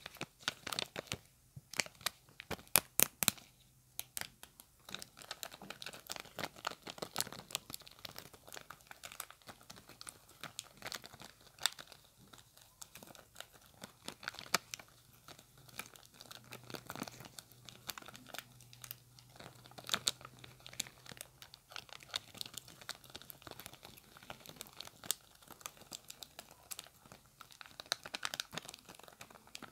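Long acrylic fingernails tapping and pressing a thin clear plastic blister sheet, crinkling it in a dense, irregular stream of crackles and clicks, with a cluster of louder snaps about three seconds in.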